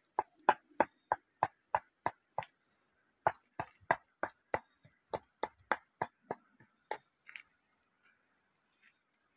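Pestle pounding in a clay mortar: about twenty sharp strikes at roughly three a second, with a short break after the first few, stopping about seven seconds in.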